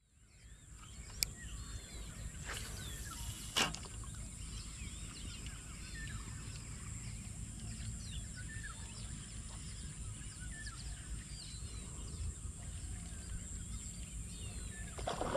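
Rural pond-side ambience: a steady high insect drone, many short bird chirps and a low wind rumble on the microphone. Two sharp clicks, about a second in and again about three and a half seconds in.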